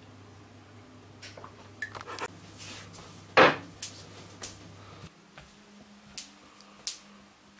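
A drinking glass set down on a kitchen worktop with one loud knock about three and a half seconds in, among lighter knocks and clicks of kitchen handling.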